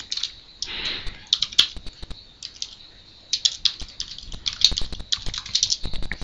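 Computer keyboard typing: quick runs of key clicks in several bursts with short pauses between.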